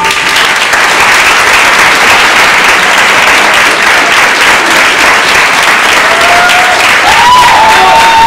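Theatre audience applauding, a dense steady clapping at a curtain call.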